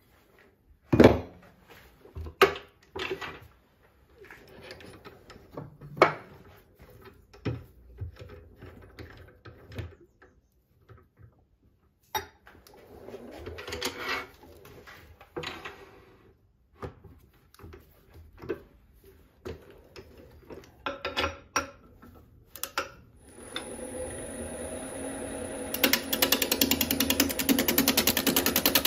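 Metal clicks and clanks as a birch log is set in a wood lathe's chuck and the chuck is tightened with its key. Near the end the lathe starts with a high whine, and a gouge begins rough-turning the spinning log, chattering rapidly against the uneven bark.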